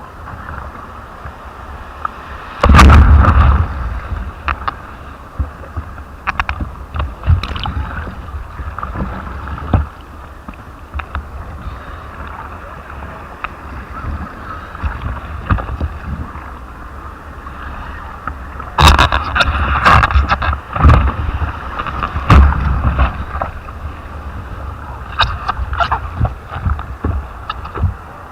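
Sea surf with wind buffeting the microphone, a steady rushing wash. There are loud rumbling gusts or bumps about three seconds in and again for several seconds past the middle.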